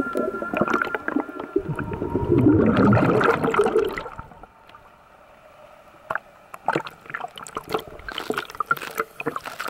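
Underwater gurgling of a scuba diver's rising air bubbles, loud for about four seconds, then dropping away to a quiet stretch with scattered small splashes and clicks.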